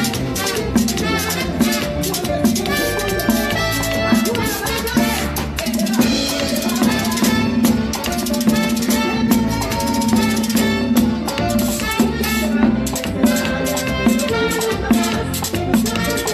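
Live merengue band playing: a metal güira scraped in a fast, steady rhythm over drums and saxophones.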